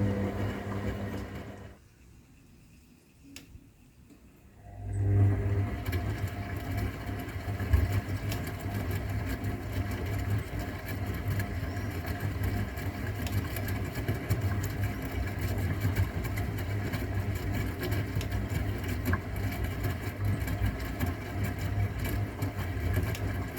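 AEG Öko_Lavamat 693 washing machine's motor turning the drum during the wash: it winds down and stops about two seconds in, pauses for about three seconds, then starts again with a low hum and runs steadily, the stop-and-restart rhythm of a drum tumbling wash.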